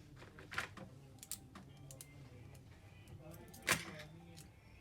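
Scattered light clicks and taps of a laptop's plastic casing and tools being handled, with one louder click a little before four seconds in.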